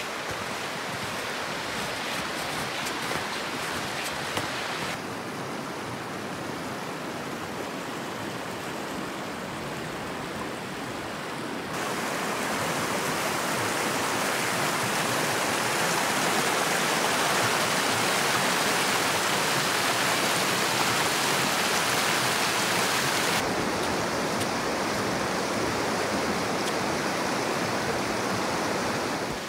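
Rushing water of a shallow river running over rocks, a steady rush that grows louder through the middle section and drops back near the end.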